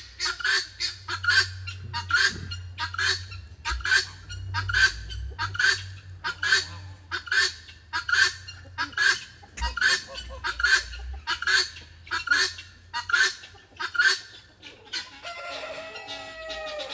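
Female guinea fowl calling her harsh, rhythmic two-note 'buck-wheat' call over and over, about two calls a second. Near the end the calling stops and a different, held bird call follows.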